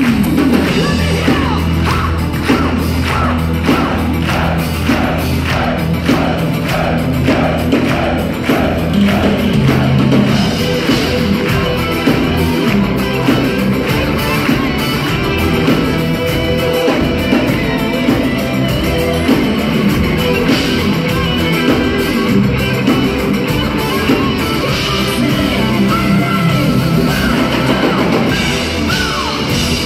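Heavy metal band playing live: electric guitars, keytar and drums, with a woman singing over them.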